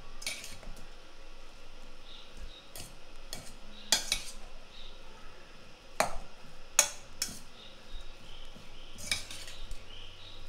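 Metal spoon stirring cooked rice in a stainless steel pot, scraping and knocking against the pot with irregular sharp clinks, the loudest about four, six and seven seconds in.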